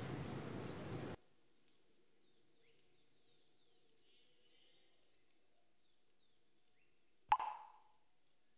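A steady hiss of outdoor background noise cuts off about a second in, leaving faint high bird chirps. About seven seconds in, the smartphone messaging app plays its single short 'message sent' pop, with a brief ring.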